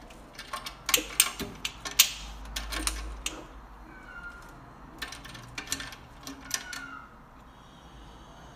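Metal clicking and rattling as a cat paws at a key in the lock of a wire cage door, in two flurries of sharp clicks.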